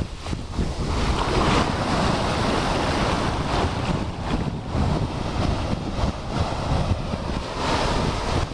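Ocean surf breaking and washing in over sand, the wash swelling about a second and a half in and again near the end, with wind rumbling on the microphone.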